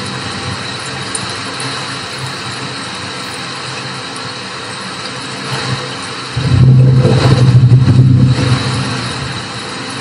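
Steady rain hiss, with a loud low roll of thunder swelling about six seconds in and rumbling for around two seconds before it fades back into the rain.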